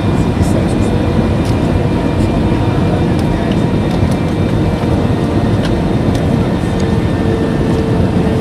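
Steady in-flight cabin noise of an Airbus A320-232: a dense rush of airflow and engine noise, with faint steady tones and a few light ticks. A hum strengthens a little near the end.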